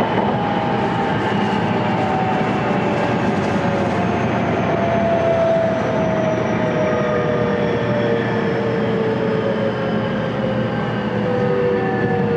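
JR West 223-1000 series EMU running, its Hitachi VVVF inverter and traction motors whining in several tones that slowly fall in pitch over the steady rumble of the wheels on the rails: the train is slowing down.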